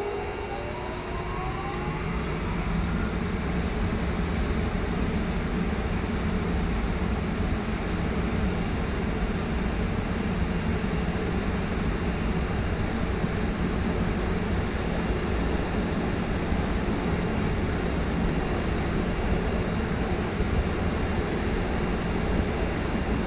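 Train departing and passing: the towed 205-500 series electric cars pulling away, with a rising whine in the first few seconds as it picks up speed, then a steady rumble and rail noise from the wheels.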